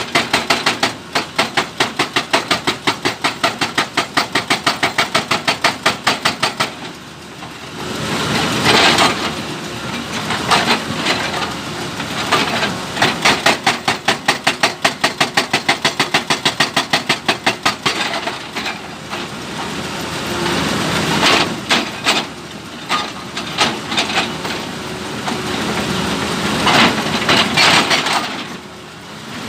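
Excavator-mounted hydraulic breaker hammering a stone boulder, rapid blows at about eight a second in runs of several seconds. Between runs the excavator's diesel engine is heard running.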